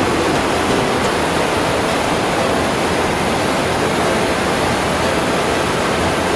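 Steady, even rushing noise like running water or hiss, with no distinct events.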